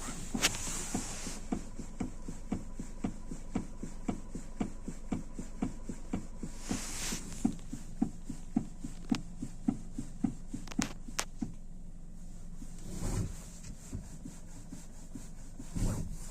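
Steering rack of a fourth-generation Kia Rio knocking: short dull knocks repeating evenly, about two to three a second, which stop about eleven seconds in. The knock is the sign of a fault in the steering rack.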